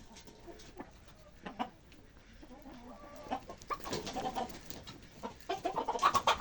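Chickens clucking: a few scattered short clucks at first, growing louder and busier in the last second or so.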